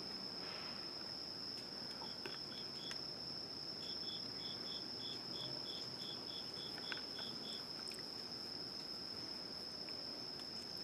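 Insects chirring: a steady high-pitched trill with a run of short, higher chirps at about three a second.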